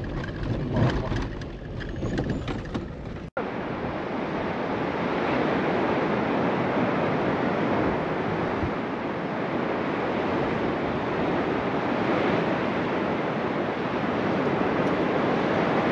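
A low rumble that breaks off suddenly about three seconds in, followed by the steady rush of Atlantic surf washing on the shore, with some wind on the microphone.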